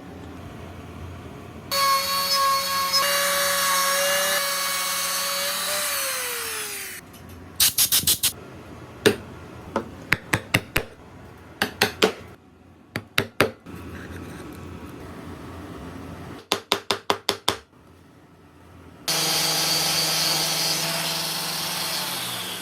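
A woodworking power tool runs with a steady whine, then spins down. Next come sharp knocks on wood in short quick runs, as in tapping or chiselling an inlay into place. A power tool then runs again near the end.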